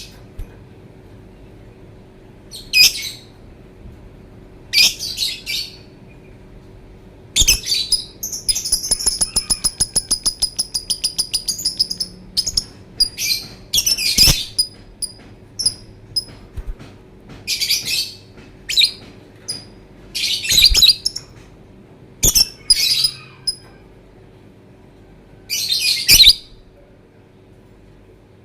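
Lovebird singing: short, sharp, high-pitched chirping phrases, with a long rapid trill of fast ticks over a steady high whistle from about seven to twelve seconds in.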